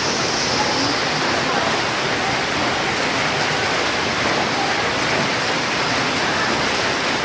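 Heavy storm rain falling in a steady, even rush.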